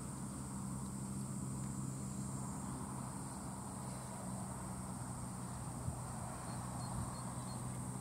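Insects droning in a continuous high-pitched chorus, over a steady low hum.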